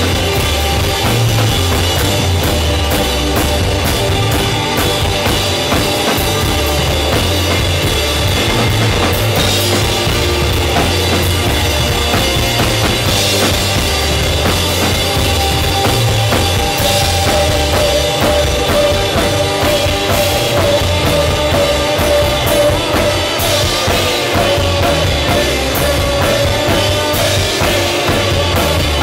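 Live band playing loud, with banjo, electric bass and a drum kit keeping a steady bass-drum beat.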